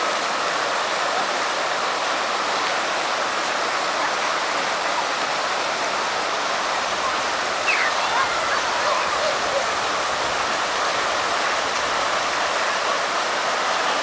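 Floodwater of the Todd River, a normally dry desert river running after rain, rushing steadily. A faint short higher sound comes briefly about halfway through.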